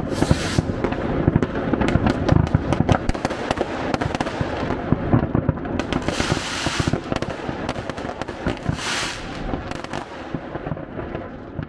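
Dense New Year's Eve fireworks: many overlapping bangs and crackles of rockets and firecrackers going off, with a few longer hissing, crackling bursts. The barrage thins out and gets quieter near the end.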